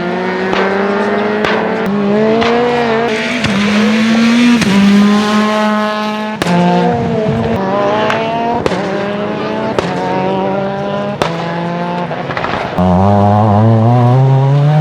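Competition car engine running hard at changing revs, interrupted every two to three seconds by sharp exhaust bangs and pops. The note climbs steeply near the end as the engine revs up.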